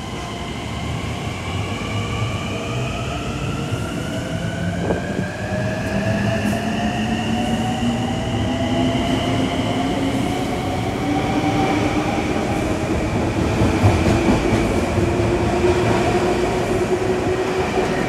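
Long Island Rail Road electric train pulling out of the station. Its motors whine in several tones that rise steadily in pitch as it gathers speed, over the low rumble of the wheels on the rails.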